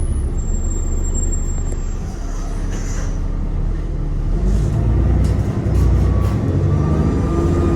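ADL Enviro 400 (E40D) double-decker bus's Cummins diesel engine running with a steady low rumble. About five and a half seconds in, a faint turbo whine comes in and rises slightly in pitch.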